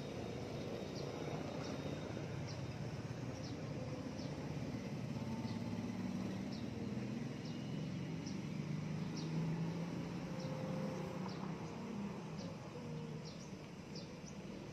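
Outdoor ambience: short high chirps repeating about once or twice a second, over a low steady rumble.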